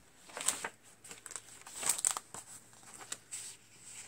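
Paper pages of a coil-bound handmade journal being turned by hand: two louder rustles, about half a second in and about two seconds in, with small crinkles and ticks between.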